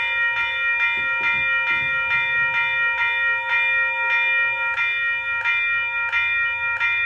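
WCH electronic bell ringing: an evenly repeated, bright metallic ding, struck about one and a half times a second, each ring lasting until the next.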